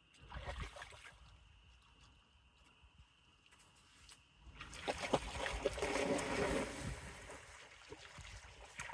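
Water splashing and sloshing as a dog swims: a short splash just after the start, then a longer, louder stretch of splashing from about halfway that lasts some three seconds.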